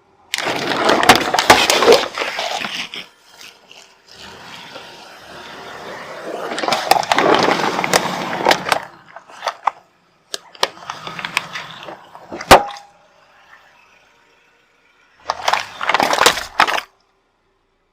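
Objects crunching and cracking under a car tyre in several short separate clips, each a burst of dense crackling. About two-thirds of the way through comes one sharp snap with a brief ring.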